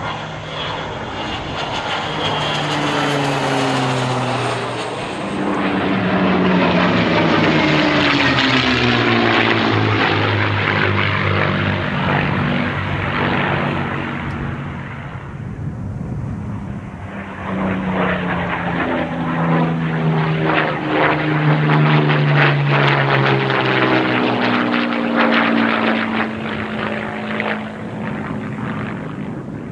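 Pilatus PC-9 turboprop trainers, several at once, making two flybys. Each pass swells up to a loud propeller and engine drone whose pitch falls as the aircraft go past, with a brief lull between the two passes about halfway through.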